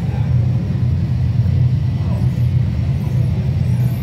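Steady low rumble of a busy indoor exhibition hall, with faint indistinct voices of visitors in the background.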